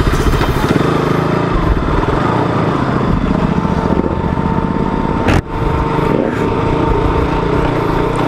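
KTM RC sport bike's single-cylinder engine running steadily as the bike is ridden along a rough dirt trail. A thin steady whine joins about four seconds in, and the sound drops out for a moment about five and a half seconds in.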